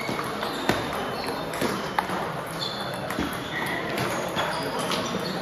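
Table tennis rally: a celluloid-type ball clicking sharply off the rubber paddles and the table in an irregular run of hits, over the hum of a large hall where other tables' ball clicks and faint voices are heard.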